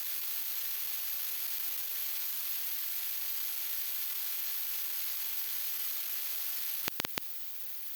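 Steady hiss, even and without any motor tone, with a few sharp clicks about seven seconds in, after which the hiss carries on slightly quieter.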